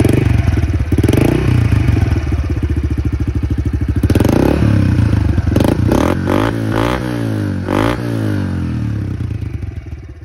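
Honda CRF110F's small fuel-injected single-cylinder four-stroke running through a freshly fitted Pro Circuit T-6 exhaust, revved up and let back down several times, then settling back to idle and getting quieter near the end.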